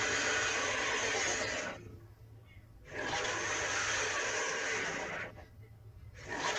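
Gorgosaurus dinosaur roar sound effects: a long, harsh roar already going, a second starting about three seconds in, and a third beginning near the end, each lasting about two seconds.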